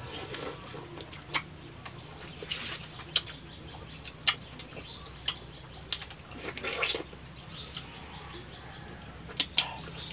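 Mouth sounds of two people eating santol fruit: wet sucking and slurping of the pulp, with scattered sharp smacks and clicks.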